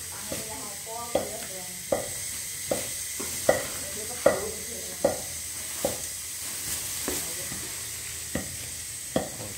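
Soft cooked corn being scooped from an aluminium pot into a metal bowl, with a sharp knock against the metal about every second, over a steady hiss.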